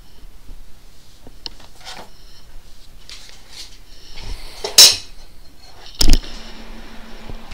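A few light clicks and bits of clatter, then two loud knocks about five and six seconds in, the second deeper and heavier, as someone gets up from a desk chair and moves away from the desk.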